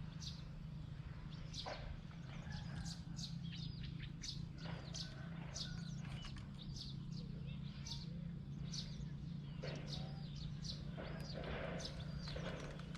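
Birds chirping, many short sharp chirps in quick succession, over a steady low hum.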